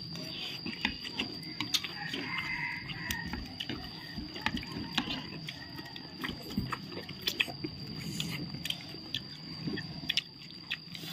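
Metal spoons clinking and scraping against a plastic bowl of green papaya salad as it is scooped up to eat, an irregular scatter of light clicks.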